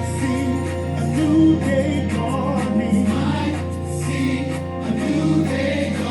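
Gospel worship music: the song's intro, with choir voices singing over sustained low bass notes.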